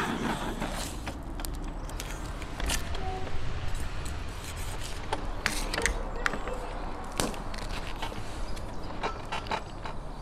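Thin steel wire being twisted tight around a lamb carcass's legs and a steel spit rod: creaking, with scattered sharp clicks of wire against the rod.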